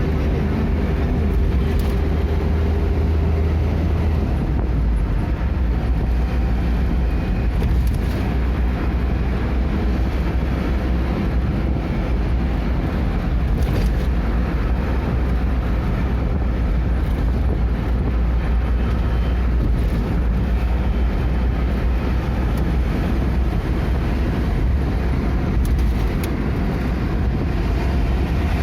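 Steady rumble of a moving vehicle, with a deep low hum and an even road or track noise that do not change.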